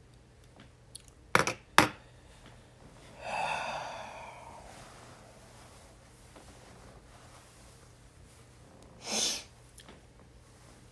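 Eyeglasses set down on a table with two sharp knocks, then a long sigh with voice in it from a man, and a short sharp breath out near the end.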